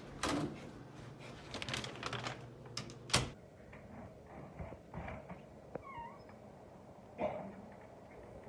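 A run of sharp clicks and knocks, then a cat meows once, briefly, about six seconds in.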